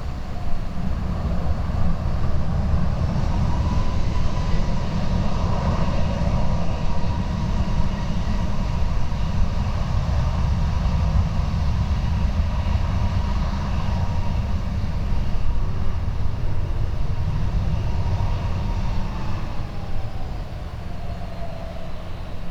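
Jet airliner's engines running with a steady whine that drops in pitch near the end as the aircraft passes, over heavy low wind rumble on the microphone.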